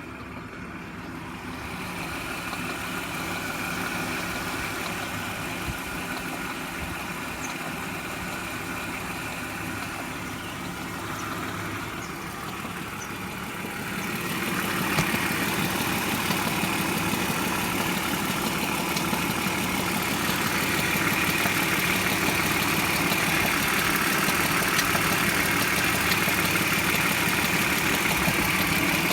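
BMW E46 323i's M52B25TU 2.5-litre straight-six idling with a clattering, rattling noise. The noise persists despite new hydraulic lifters, a rebuilt Vanos unit with anti-rattle kit and new chain tensioners, so its cause is unknown. The sound grows louder about halfway through.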